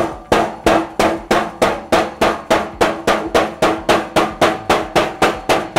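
A hammer striking a sheet-metal car fender in a steady run of blows, about three a second, each with a short metallic ring, as dents are knocked into the new panel.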